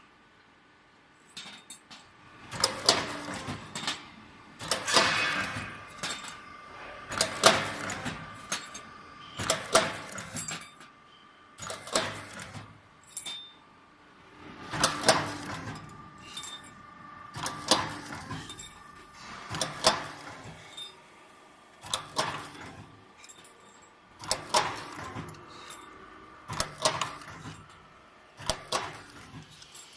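Automatic hydraulic CNC pipe hole-punching machine working through its cycle: a cluster of sharp metallic clanks from punching and feeding the tube about every two and a half seconds, with a metallic ring lingering between strokes.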